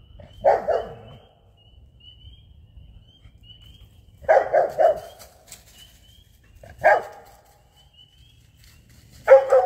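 A dog barking up into a tree where a squirrel has gone, treeing it. There is a single bark about half a second in, a quick run of three around four seconds, another single bark near seven seconds, and a run of several barks near the end.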